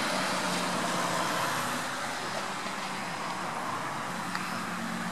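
Steady outdoor background noise with a faint low engine hum from a distant vehicle that fades in and out.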